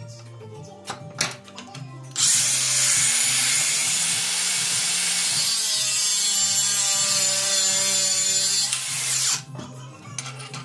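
Angle grinder cutting metal, running for about seven seconds from about two seconds in and stopping sharply near the end. A few short knocks come before and after it, over background music with a steady beat.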